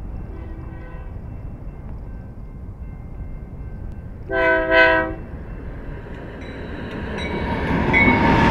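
A BNSF freight train's locomotive horn sounds faintly at first, then gives two short, loud blasts about four seconds in. The rumble of the approaching train builds steadily toward the end.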